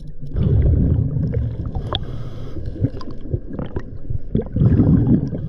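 Underwater scuba sounds: the diver's exhaled regulator bubbles rumbling and gurgling past the microphone, with scattered small clicks and knocks.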